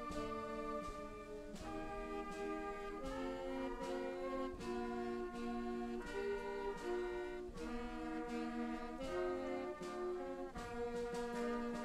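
A brass band playing slow processional music in sustained chords, the chord changing every second or so.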